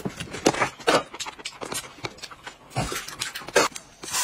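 A person eating noodles with chopsticks: slurping and chewing mouth noises, mixed with short sharp clicks and knocks.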